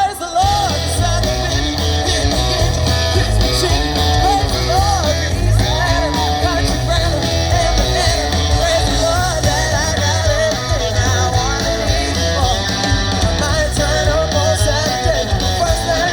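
Music: a country song, with a singing voice over guitar and a steady bass and drum beat.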